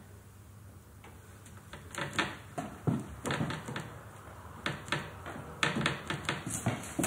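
Scattered light taps and clicks of painting tools being handled at an easel, starting about two seconds in and coming several times a second at moments.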